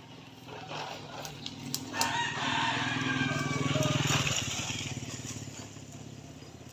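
A rooster crows once, about two seconds in, the call lasting about two seconds. Under it runs a steady low hum, and a few sharp clicks come just before the crow.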